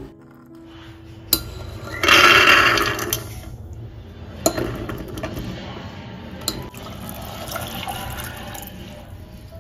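Water poured off soaked dried peas as they are drained, loudest as a rush about two seconds in, then a few sharp clinks against an aluminium pressure cooker and a steady stream of water poured into the cooker over the peas and potato pieces.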